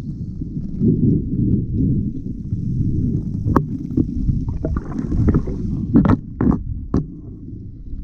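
Muffled low rumble of sea water surging over the seabed, heard through an underwater camera housing, with a few sharp clicks and knocks in the second half.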